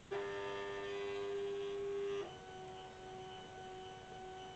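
Silhouette Cameo 4 vinyl cutter's feed motor whining steadily as its rollers drive the material through and out the back. A little over two seconds in, the whine drops slightly in pitch and gets quieter, then runs on steadily.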